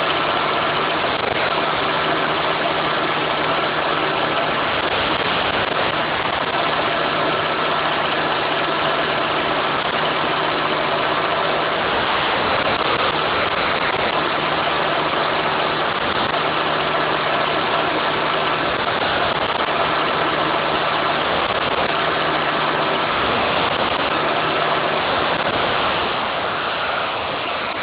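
Car engine idling with the electric radiator cooling fan running: a steady rush of air over the low hum of the engine. It eases a little near the end.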